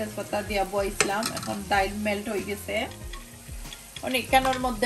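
Metal spoon stirring a liquid in a stainless steel pot, scraping the pot in repeated strokes with squeaky tones over a faint sizzle. The stirring eases off about three seconds in and picks up again near the end.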